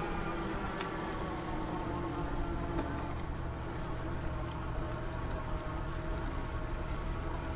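Wind rumbling on the microphone and tyre noise from a bicycle rolling along a campground road, with a faint steady hum behind it and a couple of light clicks.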